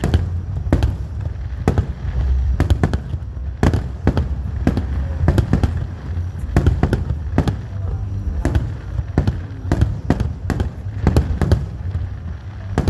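Fireworks display: many sharp bangs of bursting fireworks in quick succession, several a second, over a continuous low rumble of echoing explosions.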